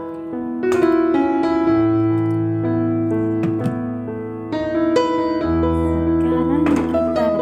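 Background music: a soft, slow piano or electric-piano piece with long held notes and chords.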